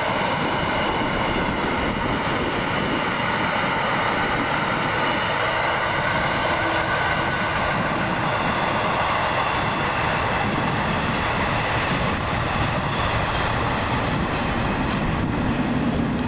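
A train passing close by: a steady, loud rush of wheels on rails, with a high ringing hum in it.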